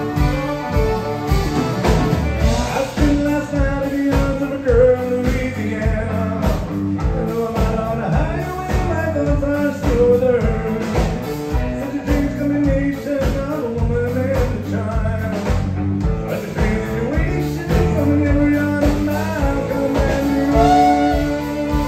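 Live country band playing: a male lead vocal over acoustic guitar, electric guitar, fiddle, bass and a drum kit keeping a steady beat.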